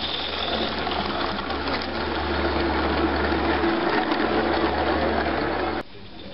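Small-scale live steam garden-railway locomotive and its train of loaded hopper wagons running past close by, a steady rumble and clatter of wheels on the track. The sound drops away abruptly near the end.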